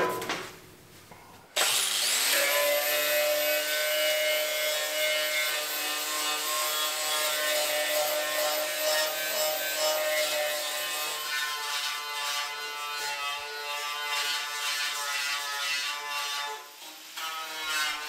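Angle grinder spinning up about a second and a half in, then grinding the rusty steel edge of a car fender with a steady high whine and hiss, cleaning up the cut for a patch panel. It drops out briefly near the end and starts again.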